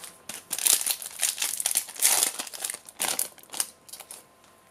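Foil booster-pack wrapper crinkling in irregular bursts as a Yu-Gi-Oh pack is opened and handled. It stops near the end.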